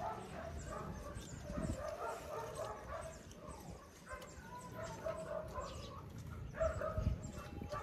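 Chickens clucking repeatedly in short calls, with a couple of low thumps, one about a second and a half in and one near the end.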